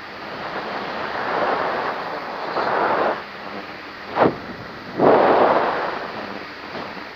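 Wind buffeting the microphone in flight, coming in gusts, with two loud swells and a brief sharp pop just before the second.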